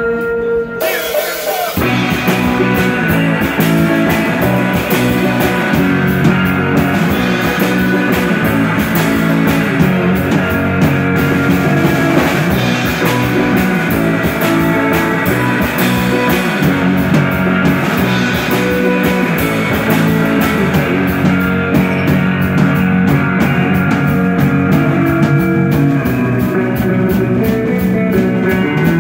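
Live instrumental rock band with electric guitar, bass guitar and drum kit. The electric guitar plays alone at first, then about two seconds in the drums and bass come in and the full band plays on.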